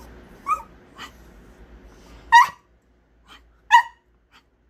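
Yorkshire terrier giving short, high-pitched yips: two softer ones in the first second, then two loud, sharp ones about halfway through and about a second and a half later.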